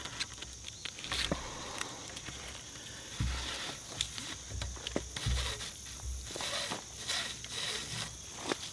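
Cord being pulled through and wrapped around log poles, sliding and rasping against the bark, with scattered small clicks and a few low thumps from handling.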